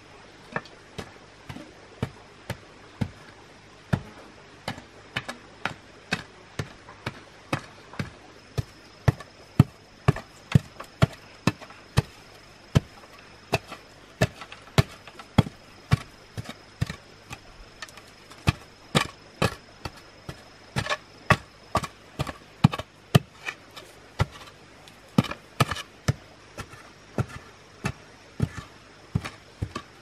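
Wooden pole jabbed repeatedly down into a hole in dry, stony soil: a run of dull knocks, about one a second at first, then quicker at about two a second.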